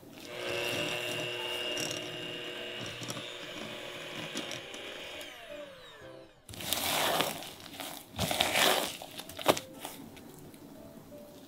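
Electric hand mixer running at a steady speed, beating butter and sugar in a glass bowl, then winding down with a falling whine about six seconds in. After it, a few seconds of rough scraping noises against the bowl with one sharp click.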